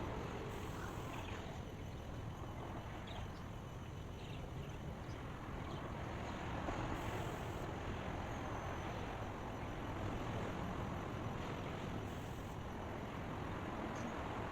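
Steady, even background hiss like white noise, with a few faint short high chirps.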